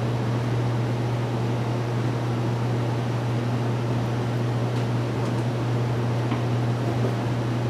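Steady machine hum with an even rush of air noise and a strong low drone, as from a running fan or air unit in the room, with a few faint light clicks around five to six seconds in.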